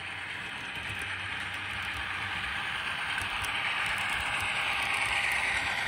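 N scale Rapido BC Rail C40-8M model locomotive running with its DCC sound decoder, diesel engine sound from its tiny onboard speaker mixed with the train's running noise on the track. It grows steadily louder as the locomotive comes close.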